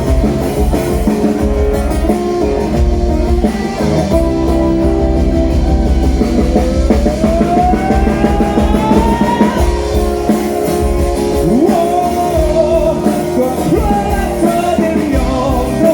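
Band music with guitars and a drum kit playing a steady beat, with a lead line that glides upward over several seconds in the middle of the passage.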